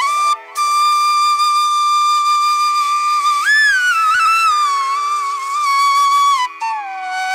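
Solo flute melody as background music: a long held high note, then a slide up into bending, ornamented notes, and a drop to a lower held note near the end.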